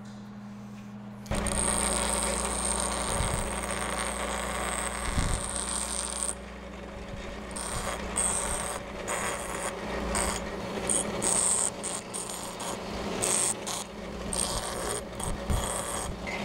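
Bench grinder running, with a tool-steel form tool pressed to the wheel in short passes to grind relief behind its cutting edge. A steady motor hum comes in about a second in, under an on-off grinding hiss with scattered clicks, which stops for a moment about six seconds in.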